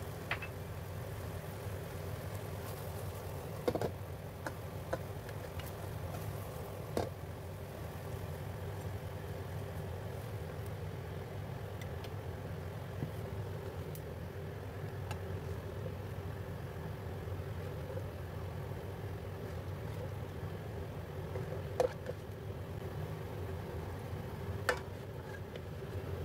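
Steady low hum with a few short clicks and scrapes of a spatula against a nonstick wok as the stir-fry is scooped out.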